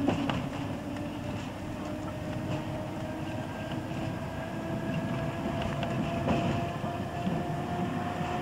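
Inside a British Rail slam-door electric multiple-unit train on the move: the carriage rumbles steadily under a whine that rises slowly in pitch. Sharp knocks come at the start and about six seconds in.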